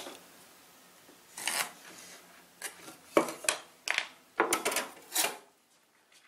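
Knocks and scrapes of 2x4 lumber and a speed square being handled on a wooden frame: a scraping swish about a second in, several sharp clacks through the middle, then a longer run of wooden scraping and rattling as a board is slid and lifted.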